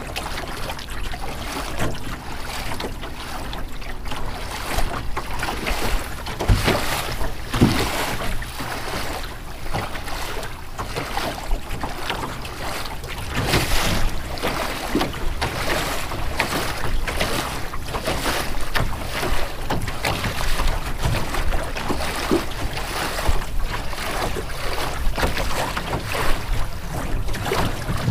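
Water splashing and rushing against the hull of a small Melonseed sailing skiff moving through choppy water, in irregular splashes, with wind buffeting the microphone.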